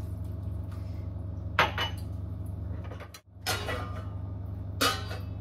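Steel cookware on a stove clinking and clanking as utensils, a glass and a lid are handled against a pan: a sharp ringing clank about a second and a half in, a short clatter a little after three seconds, and another ringing clank near the end, over a steady low hum.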